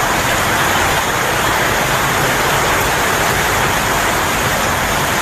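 Floodwater rushing past, a loud steady noise with no breaks.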